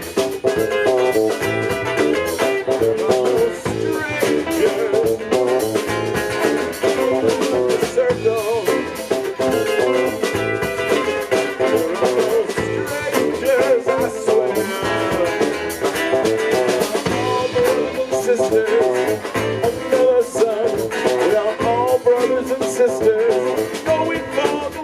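Live band playing an instrumental passage: electric guitar over a drum kit.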